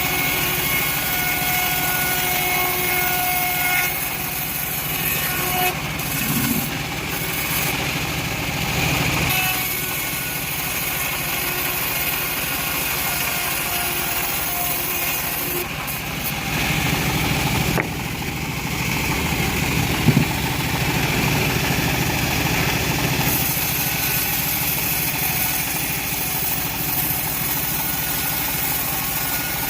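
Engine-driven band sawmill running steadily while ripping a teak log. Its tone changes a couple of times, and there is a sharp knock about two-thirds of the way through.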